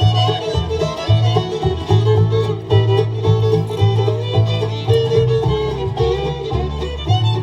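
Bluegrass band playing an instrumental break, the fiddle carrying the melody over banjo, guitar and a bass line on a steady beat.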